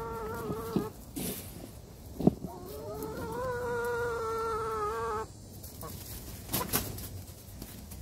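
Domestic hens calling: a drawn-out call ends just under a second in, then another long, steady-pitched call is held for about two and a half seconds from about two and a half seconds in. A few sharp knocks fall between the calls and again near the end.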